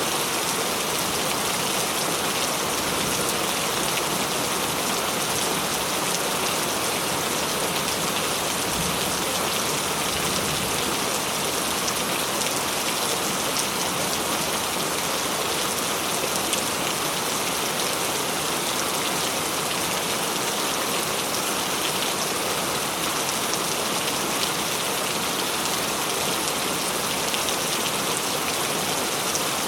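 Heavy rain falling steadily: a dense, even hiss of countless drops with no letup.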